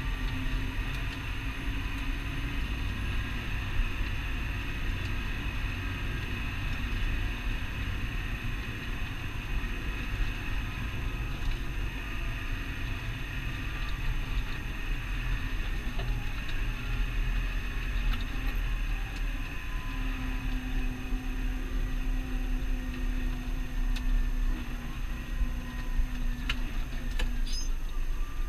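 Massey Ferguson 6480 tractor's six-cylinder diesel engine running steadily at road speed, heard inside the cab: a low drone with a steady high whine over it. A few sharp clicks near the end.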